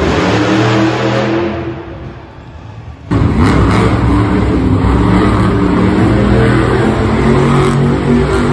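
Monster truck engines revving: one fades away over the first three seconds, then there is an abrupt switch to another monster truck's engine running loud and steady as the truck spins in circles on a dirt arena floor.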